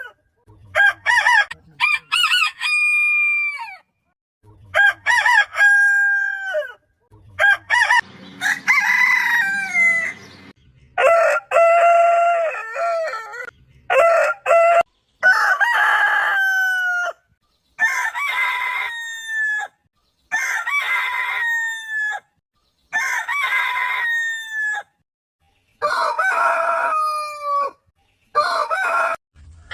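Roosters crowing, about a dozen separate crows one after another, each a second or two long and most trailing off with a falling pitch, with short gaps of silence between them.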